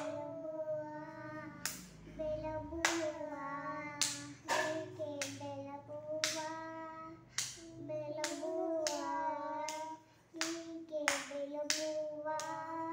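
A child singing in a high voice with long held notes, while hands clap along roughly once a second. The singing breaks off briefly about ten seconds in.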